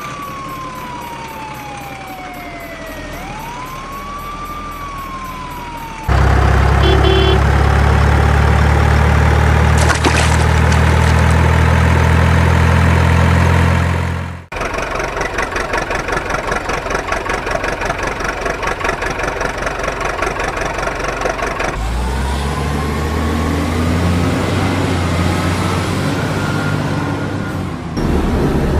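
Truck engine sounds that change every several seconds: first a tone sliding down and then up and down in pitch, then from about six seconds in a loud, steady low engine drone that cuts off sharply about halfway, followed by a rougher, rhythmically pulsing engine run.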